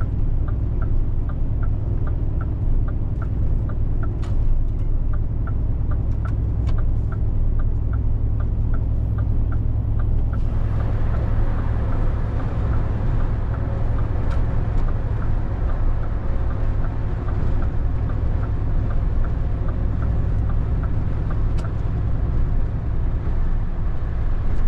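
Inside a heavy truck's cab at road speed on a wet highway: a steady low drone of the diesel engine and road, with light regular ticking about twice a second. About ten seconds in, tyre and road hiss grows louder as the truck passes another truck.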